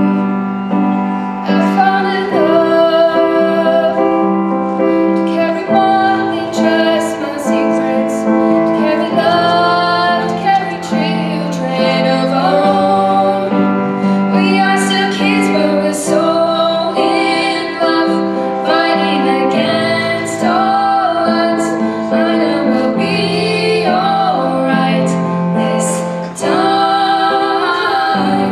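A teenage girl singing into a microphone, accompanied by chords on a Roland digital stage piano.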